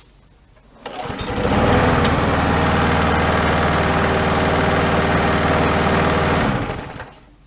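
Craftsman push mower's 6 hp Briggs & Stratton engine running steadily, with its freshly cleaned carburetor running it smoothly. It grows loud about a second in, holds even, and fades away near the end.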